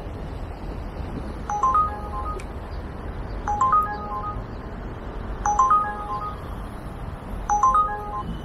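A short electronic chime, a quick run of stepped beep tones, repeating about every two seconds four times, over a steady rumble of wind and traffic.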